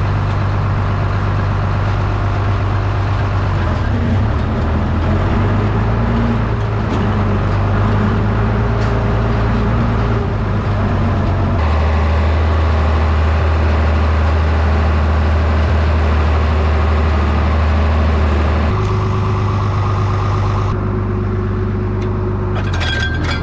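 Tractor engine running steadily under load while pulling a small square baler through the hay. The engine note changes abruptly about halfway through and again near the end.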